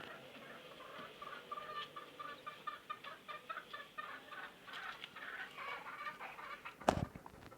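Domestic fowl clucking in a long run of short, quick calls, about five a second. A single sharp knock near the end is the loudest sound.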